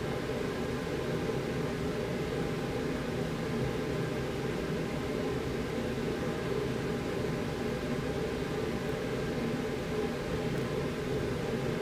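Steady mechanical hum with an even hiss, holding level and unchanging throughout.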